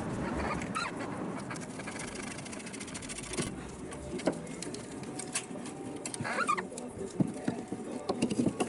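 Metal clinks and knocks from hand tools and a car alternator being worked loose from its mounting, with a few short squeaks.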